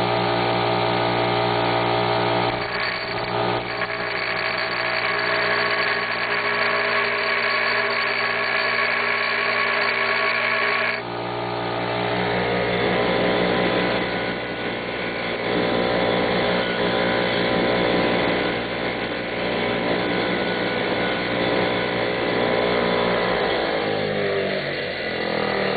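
Bench grinder running as the end of a small-engine valve stem is ground against the wheel, taking a few thousandths of an inch off its length so the valve can close fully. Near the end the grinder's hum drops in pitch as it spins down.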